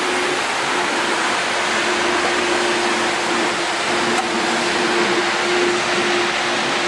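Steady hiss of city traffic, with a faint steady hum that comes and goes.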